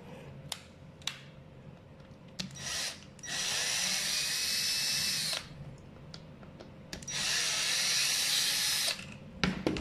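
Cordless drill-driver turning a screw out of a small LED headlight board, running in two bursts of about two seconds each, with a few light clicks of handling between them.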